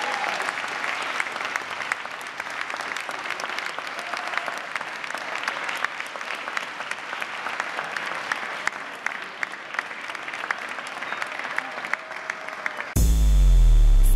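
Audience applauding steadily. Near the end it cuts abruptly to loud electronic dance music with heavy bass.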